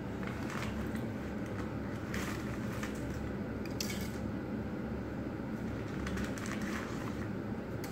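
A toddler handling dry spices and bay leaves: several short rustles and crackles over a steady low hum.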